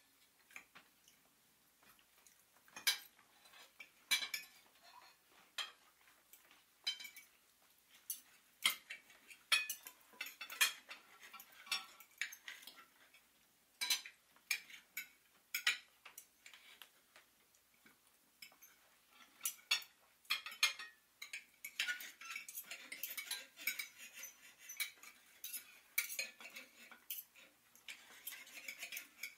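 Irregular clinks and clatter of cutlery and dishes, growing busier over the last several seconds.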